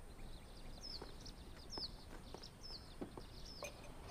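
Faint chirping of small birds: short high chirps about twice a second, with a few soft clicks in between.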